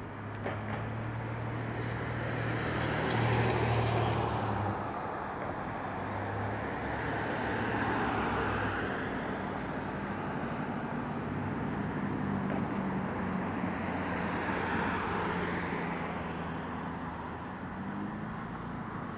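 Road traffic: cars driving past on the street, three passes swelling and fading in turn over a steady traffic hum.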